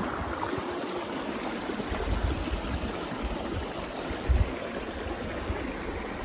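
Mountain stream running: a steady rush of flowing water, with a couple of low rumbles about two and four seconds in.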